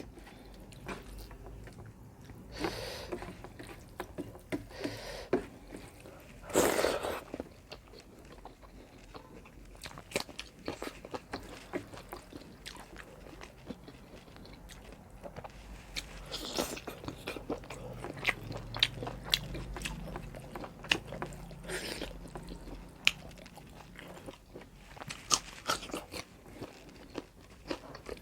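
A person eating pork curry with rice close to the microphone: chewing and biting with crunchy bites, many short sharp clicks and a few louder bursts.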